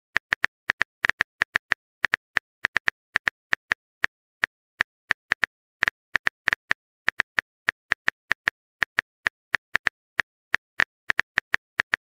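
Phone keyboard typing sound effect: short, sharp, identical key-tap clicks at an uneven pace, a few a second, sometimes in quick clusters.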